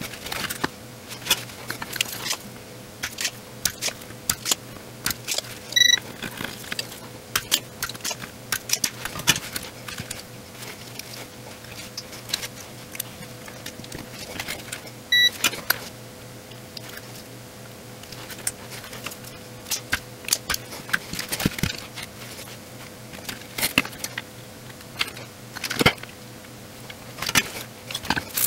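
Irregular small metallic clicks and taps of tools and parts being handled on a circuit board while inductors are fitted. Two short electronic beeps, about six seconds in and again about fifteen seconds in, over a faint steady hum.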